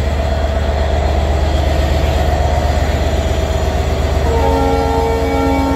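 A steady low rumble, then a train horn sounding several tones at once from about four seconds in, held as a long chord.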